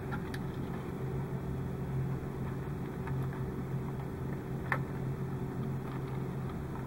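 Steady low hum, like a motor or appliance, running under faint small clicks and rustles of thin wires being twisted by hand, with one sharper click a little before five seconds in.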